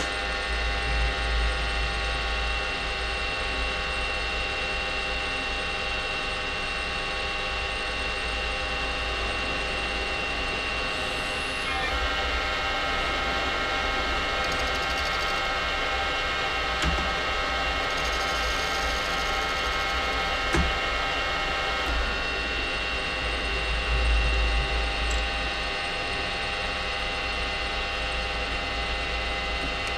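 Metal lathe running steadily while boring out the centre of a copper washer: a steady machine whine over a low hum, with a few light knocks. The whine shifts in pitch about twelve seconds in and shifts back about ten seconds later.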